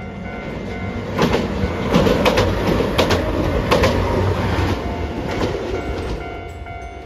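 A Hiroshima Electric Railway 5200-series Green Mover APEX articulated low-floor tram passing close by. Its running noise swells and fades again, and its wheels make a run of sharp clacks over the rail joints.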